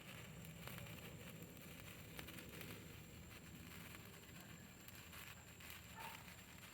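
Faint fizzing crackle of a burning gold electric-effect sparkler, very quiet, with a few light ticks.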